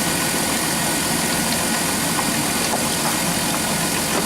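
Engine of a 2006 Dodge Grand Caravan idling steadily, with a few faint light clicks in the middle.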